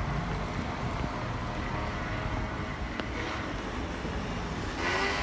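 Street ambience while walking: wind buffeting the microphone over a steady hum of city traffic. A voice starts up near the end.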